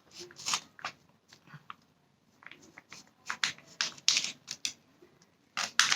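Chewing a bite of apple pie close to the microphone: irregular soft crackles and clicks from the pastry crust.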